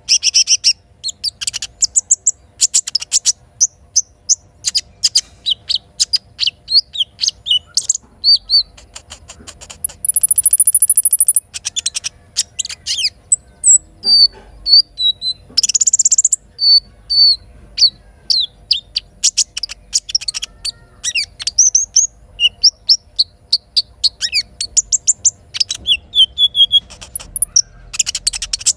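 Little spiderhunter (sogok ontong) calling: long runs of rapid, high, sharp chirps and short whistled notes, with a brief high buzzy trill about ten seconds in.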